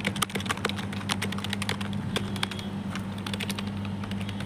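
Typing on a Prodot computer keyboard: rapid key clicks, dense at first, thinning for about a second in the middle, then resuming in short runs. Its space bar is loose and noisy, which the owner points out.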